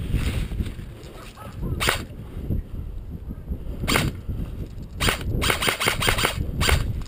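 M4-style airsoft rifle firing: single shots about two seconds apart, then a quick run of shots about five seconds in.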